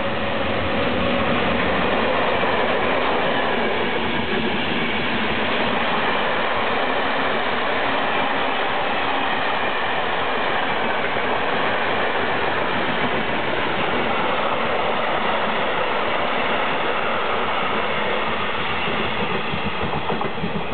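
MÁV class 470 (Siemens Taurus) electric locomotive and its passenger coaches passing at speed: a loud, steady rush of wheels on rail that swells over the first couple of seconds. Wheel knocks over the rail joints come through more plainly near the end as the last coaches go by.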